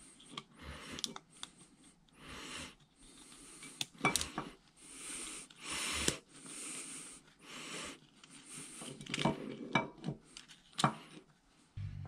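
A cast-iron feed nut bracket being handled and seated in a milling machine saddle by hand: short soft scraping and rubbing sounds with several sharp metal clinks as the part and its socket head cap screws go in.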